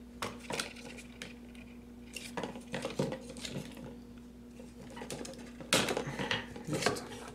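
Hard plastic and cardboard GoPro packaging and accessories being handled: irregular clicks, taps and rustles, loudest about six seconds in.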